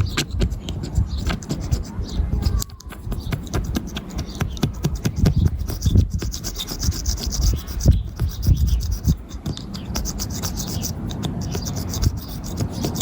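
Razor blade scraping excess cured chip-repair resin off a car windscreen, in many short, uneven rasping strokes on the glass, with a low rumble underneath.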